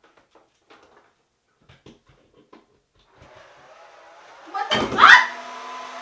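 Hair dryer switched on: a loud burst as the motor starts, its whine sweeping up in pitch, then running steadily. Before that, a few light clicks of items being handled on the counter.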